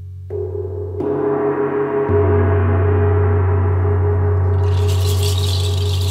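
Large gong made to sound by rubbing with a friction mallet: its many ringing tones swell up in steps over the first two seconds, then hold steady. A rattling hiss joins near the end.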